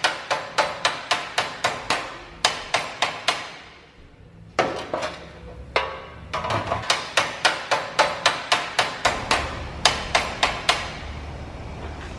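Hammer beating sheet-metal car body panels, the work of panel beating. Rapid, even blows at about four a second come in runs, broken by a short pause a little after three seconds in and again near the end.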